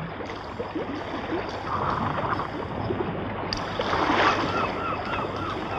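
Water and wind around a sailing ship under sail, a steady rushing noise. About two thirds of the way through, a quick run of short repeated chirps starts, about four a second.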